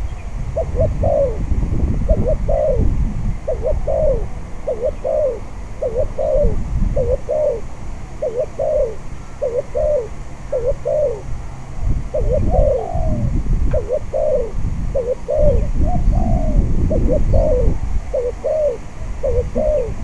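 Spotted dove cooing in a long, steady series of short coos, with gusts of wind rumbling on the microphone.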